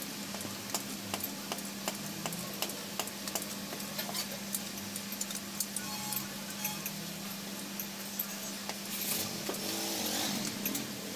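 Hammer tapping on metal at a truck power steering gearbox: sharp, irregular strikes, a few a second, over a steady low hum.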